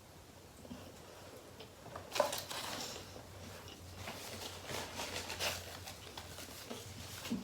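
Close-miked eating and food-handling noises: crackly rustling and clicks in two bursts, about two seconds in and again from about four to five and a half seconds in.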